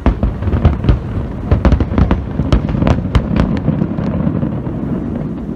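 Fireworks finale: a rapid barrage of aerial shell bursts, booms and sharp cracks packed close together. After about four seconds it thins out into a low, lingering rumble.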